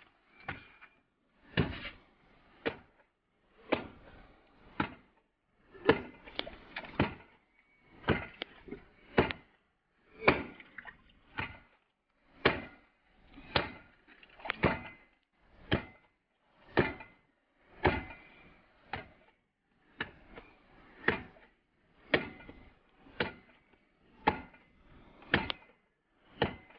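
Long wooden pestle pounding fufu dough in a mortar: a steady series of strikes about once a second, some coming in quick pairs.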